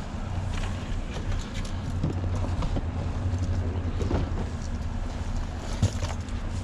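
Boat's outboard motor idling with a steady low hum, with scattered light clicks and knocks of fishing gear and a plastic tackle box being handled.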